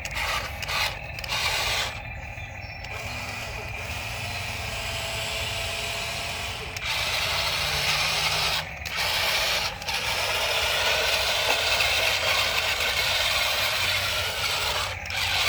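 Toy RC excavator's small electric gear motors whirring and grinding as its arm and bucket are worked. The motors run in long stretches with several brief stops.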